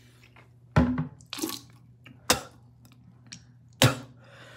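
Four short, sharp mouth and breath sounds from a man whose mouth is burning from a ghost pepper.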